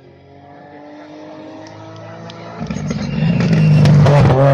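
Rally car approaching at speed on a stage, its engine note rising slightly in pitch and growing steadily louder until it is loudest near the end. A few sharp cracks come through as it draws close.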